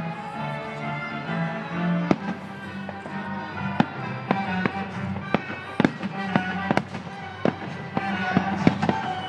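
Aerial fireworks shells bursting in a run of sharp bangs, coming faster and closer together near the end, over a symphony orchestra playing.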